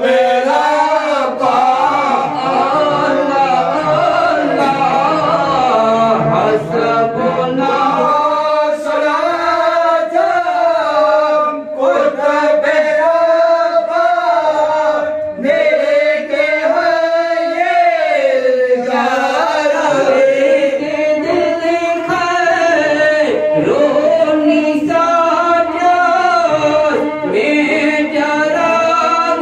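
Men singing an Islamic devotional chant through a microphone: one continuous melodic line that rises and falls, with a couple of brief pauses for breath.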